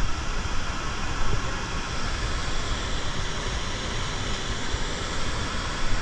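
A river rushing steadily over rocky rapids, a continuous hiss of whitewater, with wind buffeting the microphone.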